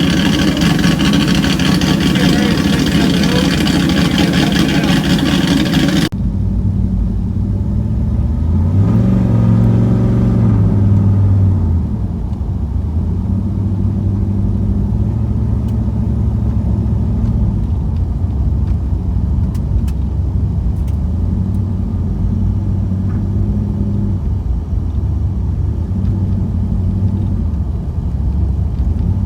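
1991 Camaro Z28's V8 idling, revved once about nine seconds in, its pitch rising for a couple of seconds and then dropping back to a steady idle. Before that, a dense, loud sound covering the whole range runs for about six seconds and cuts off abruptly.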